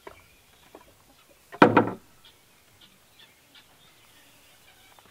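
A single short clatter about a second and a half in, with a few faint chirps scattered afterwards.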